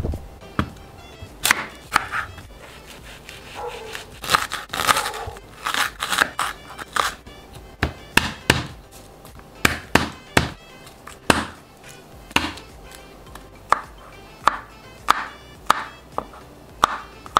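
Chef's knife chopping garlic cloves on a bamboo cutting board: sharp knocks of the blade on the wood, irregular at first, then settling into a steadier rhythm of about two a second.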